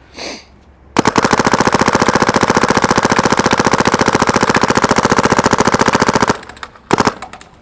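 SP Shocker XLS spool-valve paintball gun firing a long, rapid, even string of shots, then two single shots near the end.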